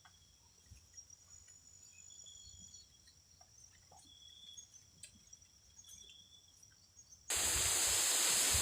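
Faint insect trills, several steady high-pitched tones coming and going, with a few small ticks. Near the end a loud, even rushing hiss starts abruptly and drowns them out.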